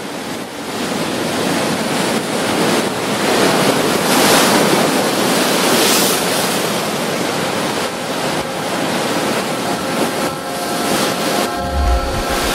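Ocean surf washing up a beach: a dense rushing noise that swells and eases. Faint sustained musical tones come in near the end, with a low thud just before it ends.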